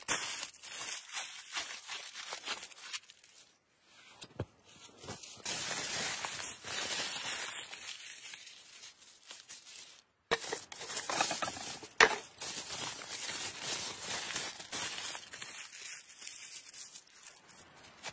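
Aluminium foil crinkling and crumpling as it is scrunched by hand around food parcels, in uneven fits and starts with two brief silences.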